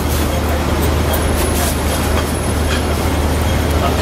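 A steady, loud low mechanical hum under a constant noisy rush, with a few light clicks.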